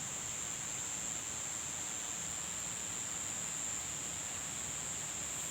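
Crickets or similar insects chirring in one steady, unbroken high-pitched drone over an even hiss.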